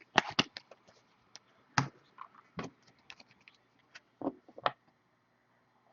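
Baseball cards being handled and sorted: a string of short, sharp clicks and taps at irregular spacing, the loudest about two seconds in.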